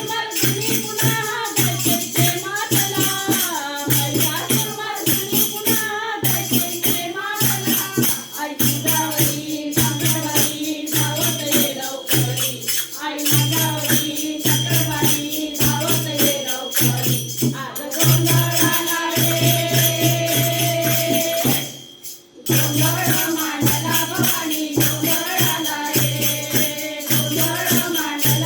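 Gondhal devotional song to the goddess Bhavani: a voice singing over a steady drumbeat and jingling percussion, with a short break about three-quarters of the way through.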